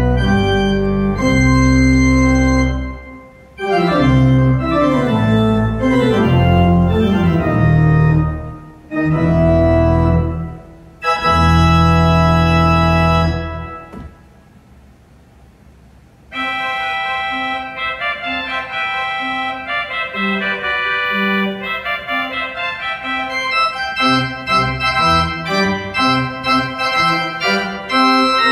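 Church organ playing loud, full chords with a heavy bass, broken by brief pauses. About halfway through it dies away for a couple of seconds, then goes on in a softer, lighter registration with short, detached notes.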